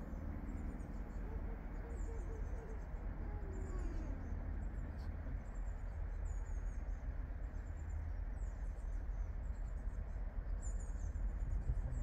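Small birds chirping repeatedly over a steady low rumble from the approaching double-headed Class 50 and Class 33 diesel locomotives, which grows slightly louder towards the end.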